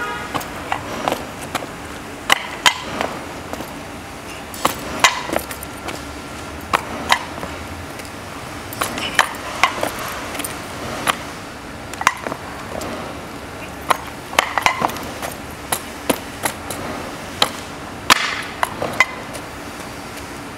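Irregular sharp knocks and clacks, sometimes several a second, from the bare frame of a self-balancing scooter on two wooden blocks as it is stepped on and off in a load test, mixed with hard-soled shoe steps on concrete.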